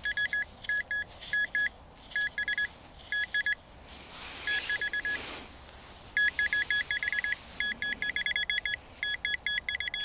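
Rutus Alter 71 metal detector beeping in short clusters and rapid trains of two alternating tones as the coil is passed over the freshly dug spot, signalling small metal targets in the soil. A brief rustle comes about halfway through.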